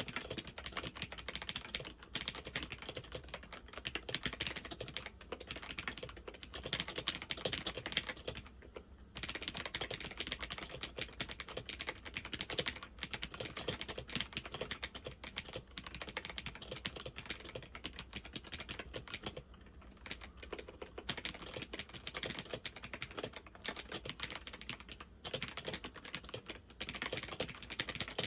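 Continuous typing on a Zenith ZFL-181-93 laptop keyboard with Alps SKFL switches: a rapid, uneven stream of key clicks, with short pauses about nine seconds in and again near twenty seconds.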